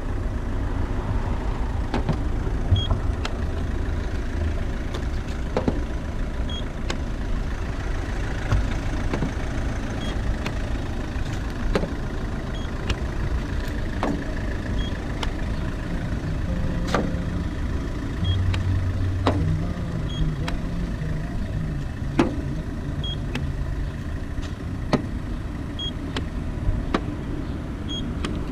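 Paint thickness gauge giving a short high beep each time it takes a reading, about ten beeps a few seconds apart, with sharp clicks as its probe is set against the car's painted body panels, over a steady low rumble.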